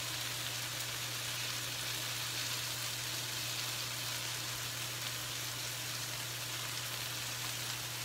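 Salmon pieces and breaded chicken pan-frying, a steady even sizzle, with a low steady hum underneath.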